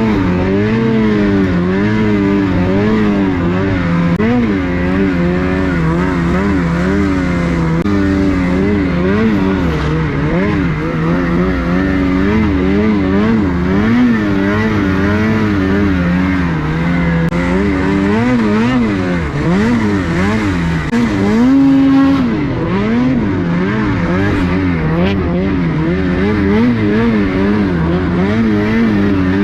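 Snowmobile engine running on the trail, its pitch rising and falling constantly with the throttle. About three quarters of the way through it holds a steady, higher note for a moment.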